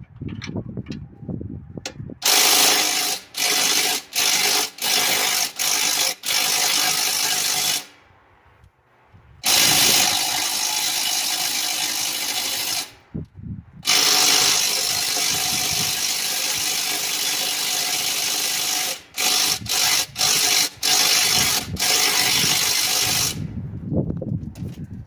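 Handheld power tool run in repeated on-off bursts, some short and some several seconds long, working on metal hard enough to heat it.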